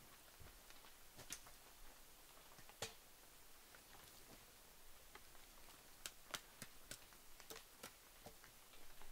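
Faint, scattered clicks and small snaps of dry twigs and kindling being handled as a small fire is lit, irregular and a few seconds apart, with a closer run of them late on. Otherwise near quiet.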